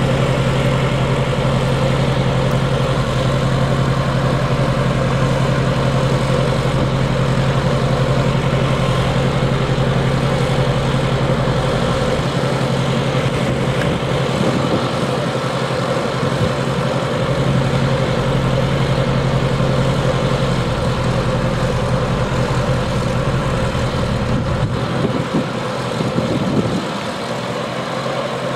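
Schweizer 300C helicopter's four-cylinder piston engine and rotor running steadily at idle on the ground, a loud, even drone. Near the end the deepest part of the sound falls away and it gets a little quieter.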